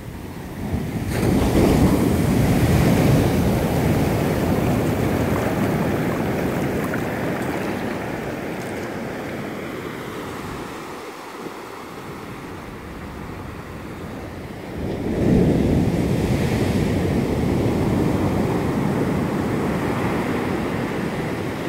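Ocean surf on a sandy beach: a wave breaks and washes up the sand, swelling about a second in and slowly ebbing away. A second wave surges in about fifteen seconds in and fades the same way.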